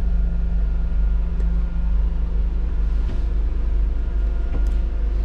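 Scania N250UD bus's 9.3-litre five-cylinder diesel idling, a steady low rumble heard from inside the driver's cab.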